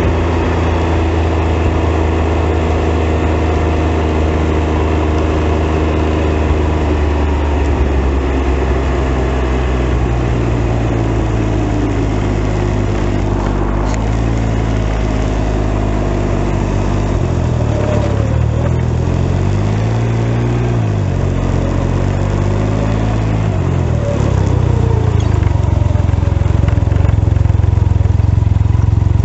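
Can-Am Ryker Rally's three-cylinder engine running under way at low speed, steady at first. Past the middle its pitch drops and rises several times as the rider slows and pulls away again, and it grows louder near the end.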